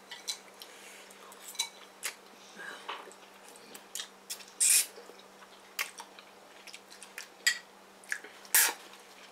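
Eating noodles at the table: scattered light clicks and taps of utensils against bowls and chewing, with two brief louder noisy sounds, one about halfway through and one near the end.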